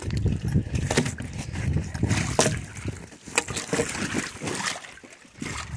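Icy slush water sloshing and broken ice chunks shifting as a gloved hand works a sprung body-grip trap and its chain in a hole chopped through the ice, with a few sharp clicks.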